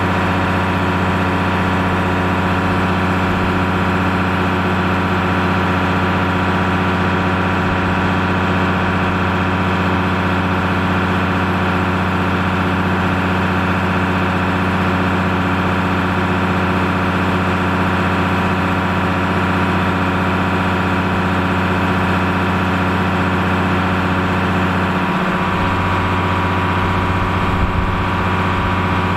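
Big farm tractor diesel engines running at a steady speed, an even deep hum that barely changes, with a slight shift in the higher tones near the end.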